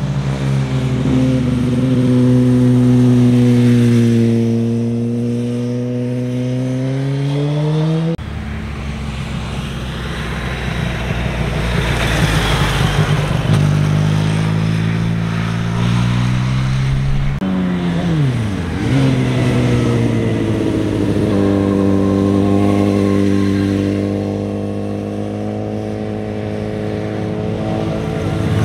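Motorcycle engines passing through a tight hairpin one after another. The engine pitch rises and falls as the riders roll off the throttle, change gear and accelerate out of the bend, with a sharp dip and rise a little past the middle. The sound switches abruptly a few times as one bike's pass gives way to the next.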